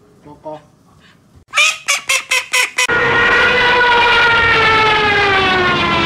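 White domestic duck quacking loudly about six times in quick succession, after a few faint calls. Then a long, loud whistle-like tone sets in and slides slowly down in pitch.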